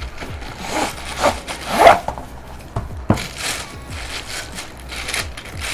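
Light stand and its parts being handled: irregular rubbing and scraping, with a sharp knock about three seconds in.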